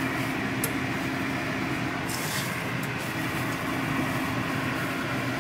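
A fan running steadily with a constant hum. A short click comes under a second in, and a brief hiss about two seconds in.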